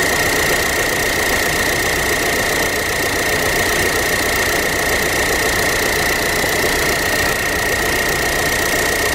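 Ford TDCi diesel engine idling roughly, shaking badly, with a steady high-pitched whistle over its uneven rumble.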